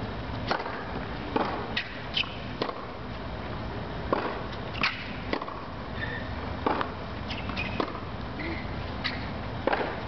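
Tennis balls being hit with rackets and bouncing on a hard court in a rally: a string of sharp pops at uneven spacing, over a steady background hiss.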